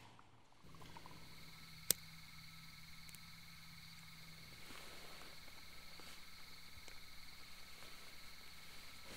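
Night-time insect chorus, crickets trilling steadily, starting just under a second in. A single sharp click about two seconds in, as a cigarette lighter is struck, with a few fainter clicks later.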